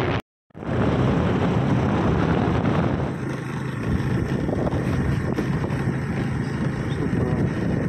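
Steady vehicle road noise with wind buffeting the microphone while travelling along a road; the sound starts after a brief cut about half a second in.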